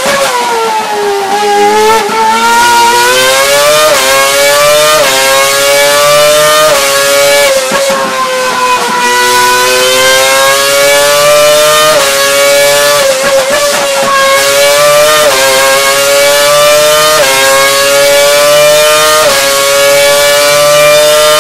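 Renault Formula 1 V10 engine running at very high revs on a test bench. Its pitch climbs steadily and then drops sharply, again and again every couple of seconds, like a run of upshifts through the gears.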